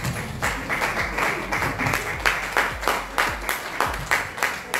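An audience clapping together in a steady rhythm, roughly four claps a second.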